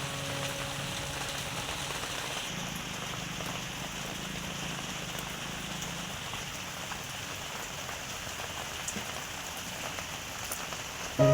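Pomfret frying in hot oil: a steady sizzle with a few small crackles.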